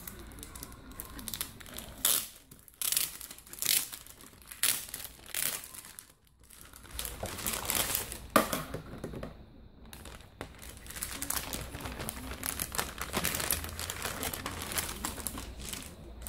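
Clear plastic packaging sleeve crinkling and rustling in the hands as it is opened and its contents pulled out. The crinkling comes in irregular spells, with a short lull about six seconds in.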